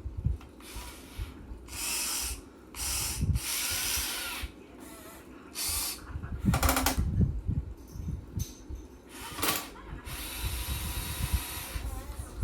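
Electric motors of a Huina 1580 all-metal RC excavator whirring in repeated stop-start bursts of about half a second to two seconds, with low knocks in between.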